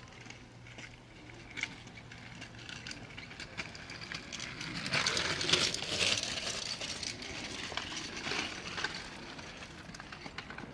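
Kids' kick scooter wheels rattling and clicking over pavement, swelling as it rolls past about halfway through, then fading.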